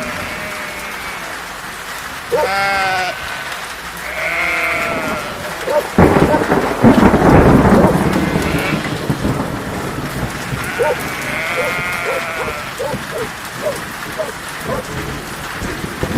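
Steady rain falling, with a thunderclap about six seconds in that rolls on as a rumble for a few seconds, the loudest sound. Sheep bleat several times through the rain.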